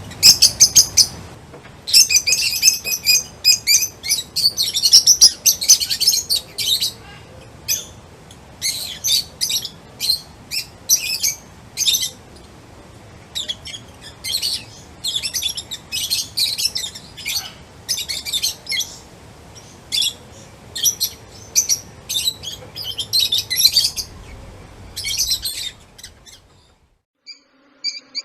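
Small songbirds chirping in quick, high-pitched bursts, several calls overlapping in dense clusters. The chirping stops about 26 seconds in, leaving a brief near-silent gap before a new run of evenly spaced chirps starts near the end.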